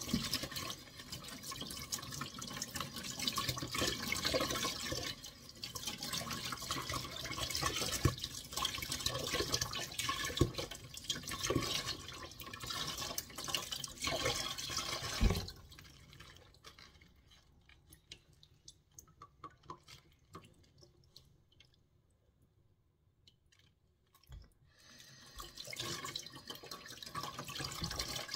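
Kitchen tap running onto bok choy as the leaves are rinsed and rubbed by hand in a stainless steel sink, with splashing and a few knocks against the sink. The water noise drops away for several seconds past the middle, then picks up again near the end.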